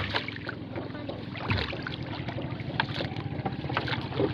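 Water splashing and dripping as a wet fishing net is hauled hand over hand out of the sea into a wooden outrigger canoe, with many small sharp splashes and a dull thump about a second and a half in. A steady low hum runs underneath.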